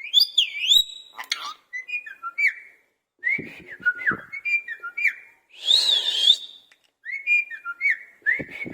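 Indian ringneck parrot whistling: phrases of short whistles that swoop up and down, with short gaps between them. About six seconds in comes a louder, harsher call.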